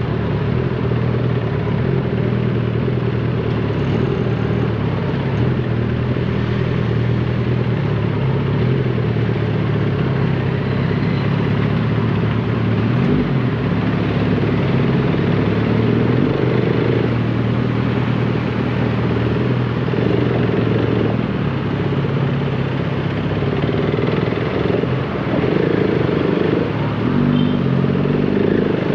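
Motorcycle engine running at low speed in slow city traffic, heard from on the bike, with its note rising and falling a few times near the end.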